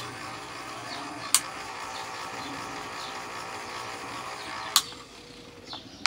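Small electric fan motor running with no blade fitted, a steady hum broken by a few sharp clicks; its shaft is wound with hair and needs grease.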